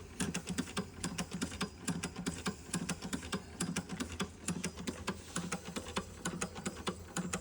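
Small vintage Doll 512/3 steam engine running on residual steam with its burner removed: a rapid, slightly uneven ticking with a low thump on many beats, several a second, as it winds down.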